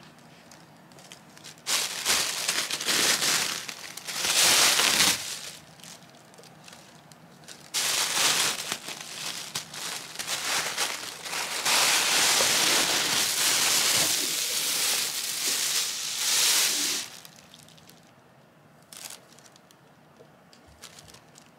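Thin plastic garbage bag crinkling and rustling as a cat rummages in it, in two long bouts of about three and nine seconds, with a brief rustle near the end.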